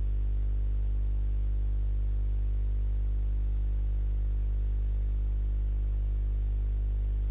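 Steady low electrical hum with a stack of even overtones, mains hum in the recording, unchanging throughout.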